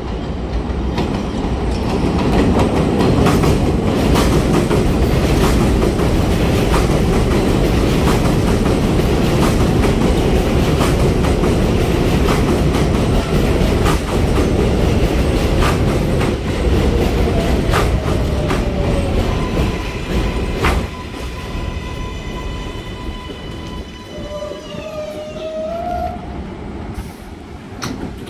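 New York subway train of R188 cars pulling into an elevated station. The steel wheels give a loud rumble with repeated clacks on the rail joints as the cars pass. From about twenty seconds in the rumble eases, and the whine of the train's propulsion motors steps down in pitch as it brakes to a stop.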